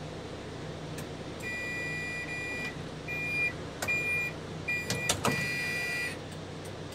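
Toyota Coaster's automatic passenger door closing, its two-note warning beep sounding over and over: one long beep, then several shorter ones. The door shuts with a clunk about five seconds in.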